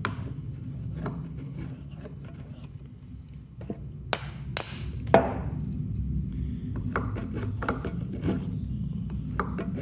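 Japanese-style pull plane shaving a chamfer along the edge of a wooden mallet head: a series of short scraping strokes, the sharpest about four to five seconds in, then a run of quicker strokes near the end.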